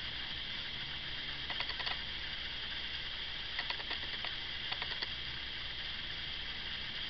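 A steady hiss with three short clusters of light, quick clicks, the first about a second and a half in and two more in the middle.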